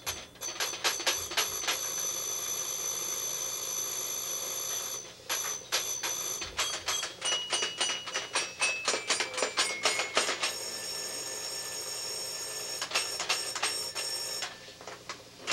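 Electronic toy sounding steady high beeping tones broken by rapid clicks of its keys being pressed. Between about seven and ten seconds in, a short run of notes steps down in pitch, and the tone changes pitch several times.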